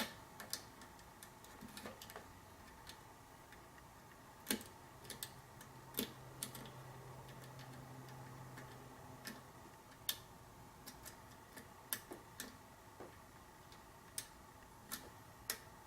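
Light, irregular clicks of a pick and tension wrench working the pins of a pin-tumbler challenge lock during single-pin picking, about fifteen scattered clicks. A faint low hum runs for a few seconds in the middle.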